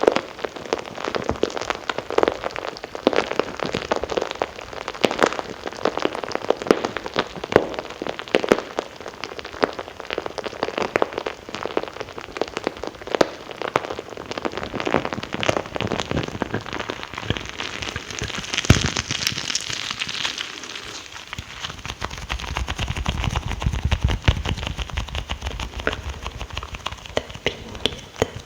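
Close-miked ASMR mouth sounds: a dense, steady stream of wet clicks, smacks and crackles. A low rumble joins for a few seconds about two-thirds of the way through.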